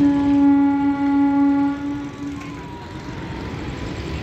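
Train horn sounding one long blast of about two and a half seconds, starting suddenly and then fading out. Under it and after it is the steady low rumble of a goods train passing on the tracks.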